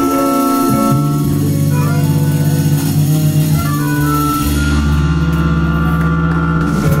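Live blues band playing the closing bars of a slow blues: saxophone, organ-toned keyboard, bass and drums on long held chords over a deep bass note.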